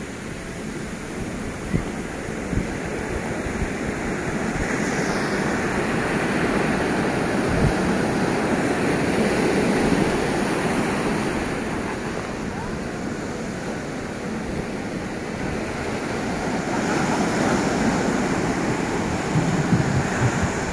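Ocean surf breaking over rocks and washing up the sand, a steady rush that swells twice as larger waves come in. Wind buffets the microphone with low thumps.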